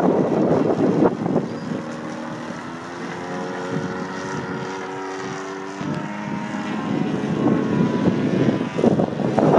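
A radio-controlled 3DHS Extra 300 aerobatic model plane flying overhead, its propeller and motor giving a steady drone that wavers slightly in pitch. Gusty wind buffets the microphone loudly at the start and again near the end.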